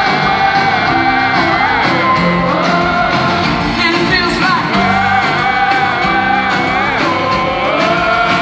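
Live pop-rock band playing in an arena, recorded from the audience: a sung line of long, wavering held notes over the band, with shouts from the crowd.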